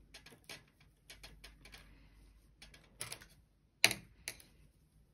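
Light, irregular clicks and taps of knitting needles as stitches are picked up one by one along a knitted edge, the loudest a sharp click just under four seconds in.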